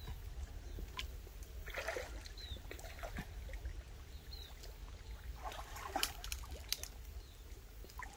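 Shallow water sloshing and splashing as someone wades and gropes by hand for fish, with scattered small clicks, the louder splashes about two seconds in and again near the end.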